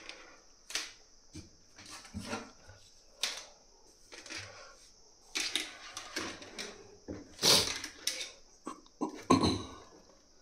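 Scattered handling noises as 3D-printer parts and tubes are moved and set down: short knocks, clicks and rustles, the loudest a little past halfway and again near the end, over a faint steady high hiss.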